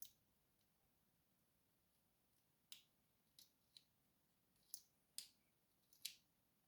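Faint, sharp metal clicks and taps, about seven in all and irregularly spaced, from handling a Sesamee padlock and small tools while taking the lock apart.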